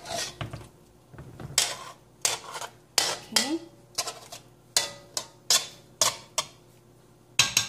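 A utensil clinking and knocking against the cooking pot while the seasoning is spooned over the fish simmering in vinegar, a string of sharp knocks spaced about half a second to a second apart.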